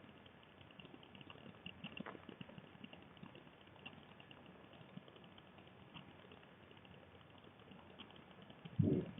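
Faint crackling room noise with scattered small ticks, then a single dull, low thump near the end.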